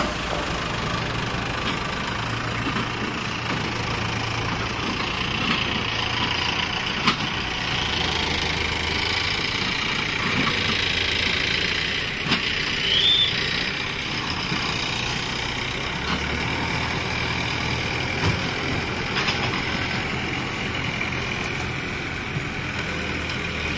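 Mahindra Arjun Ultra tractor's diesel engine running at low speed under load, hauling two trailers heavily loaded with sugarcane. The low engine note holds steady but shifts pitch a few times, and a short high chirp sounds about halfway through.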